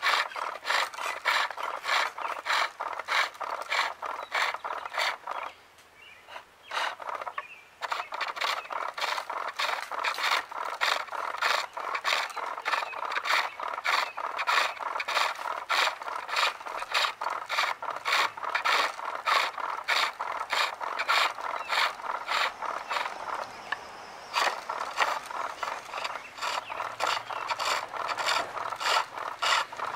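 Skew chisel cutting a maple spool on a pole lathe: a rhythmic run of short shaving cuts, about three a second, as the work spins back and forth under the tool. The cutting stops for about two seconds some six seconds in, then carries on.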